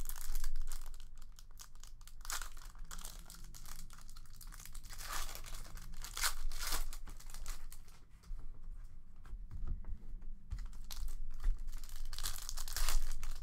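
Silver foil wrapper of a hockey trading card pack being torn open and crinkled by hand, with irregular crackles.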